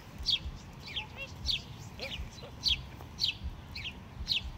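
A songbird calling over and over with short, high, falling chirps, about two a second.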